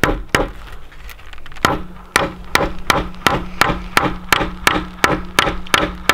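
Hammer driving nails into a wooden frame board: two strikes, a pause, then steady even blows about three a second.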